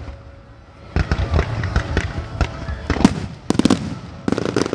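Fireworks going off: a loud burst about a second in, followed by a run of sharp crackling pops, then a quick cluster of sharp cracks past the middle and more near the end.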